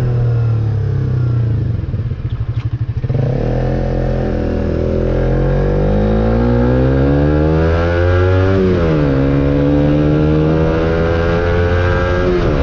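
Suzuki motorcycle with an aftermarket exhaust and its dB killer fitted, running with a low, fairly deep tone. It slows briefly, then accelerates through the gears: the engine pitch climbs, drops at a shift about nine seconds in, climbs again, and drops at another shift near the end.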